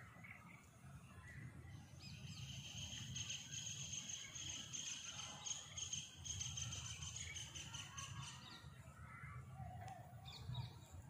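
Outdoor ambience under a low rumble, with an insect's steady high buzzing trill starting about two seconds in and stopping a few seconds before the end; a few faint bird chirps near the end.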